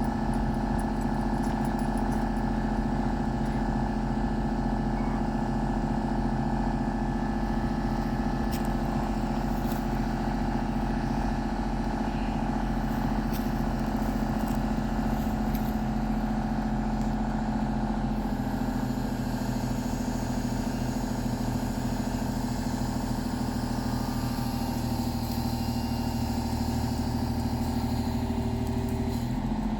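An engine running at a steady speed, its pitch shifting slightly about 18 seconds in.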